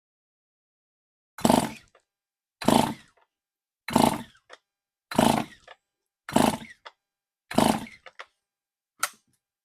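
Stihl MS 291 chainsaw's recoil starter pulled six times, about a second apart, then a short seventh pull near the end, cranking the rebuilt engine over at wide-open throttle for a compression test. The engine turns over without firing.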